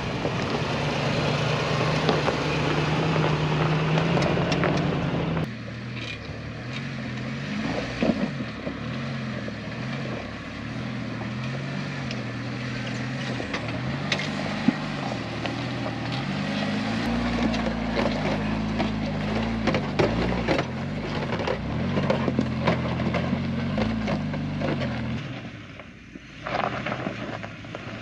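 Lexus GX470's V8 engine running at crawling pace as the SUV climbs over rocks. After a cut about five seconds in, off-road vehicles creep along a rocky dirt trail, their engines humming at low speed with tyres crunching and clicking over stones.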